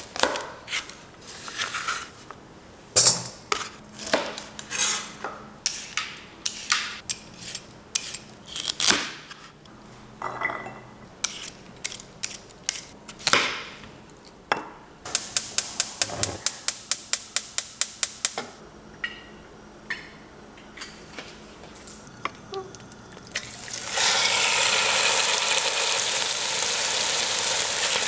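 Chef's knife chopping vegetables on a cutting board, with scattered knocks and clinks of utensils, and a fast run of chops about halfway through. Near the end, chicken pieces start sizzling in a hot Dutch oven as they are stirred.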